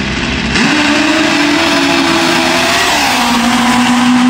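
Top Fuel nitro drag motorcycle making a pass. It starts suddenly and loudly about half a second in, and its pitch drops around three seconds in as it goes by and pulls away.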